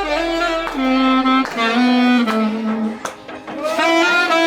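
A single melody instrument playing a slow tune in long held notes, with a brief break about three seconds in.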